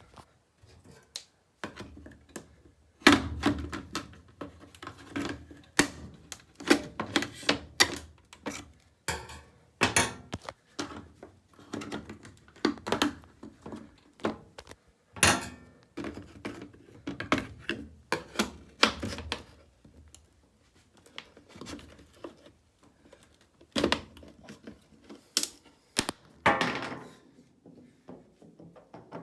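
Scissors hacking and prying at an old washing machine's plastic control knobs and panel: many irregular sharp clacks and thunks, coming in busy spells with a quieter stretch a little past the middle.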